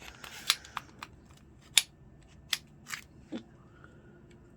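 Sharp metallic clicks and clacks of an SCCY CPX-2 9mm pistol's slide being worked against its frame during reassembly, about eight at irregular spacing, the loudest near two seconds in. The slide fights going on because the barrel is not yet centered and forward, as the owner later finds.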